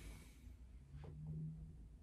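Two quick, faint finger-on-finger percussion taps on the chest wall about a second in, tracing the lower lung border while the patient holds an exhaled breath. The tail of the patient's exhalation hisses at the start.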